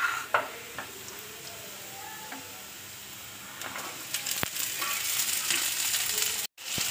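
Cut cluster beans tipped into hot oil with frying onion and green chillies, sizzling as a spatula stirs them in the pan. A sharp knock just after the start; the sizzle grows louder about halfway through, with scattered clicks of the spatula against the pan.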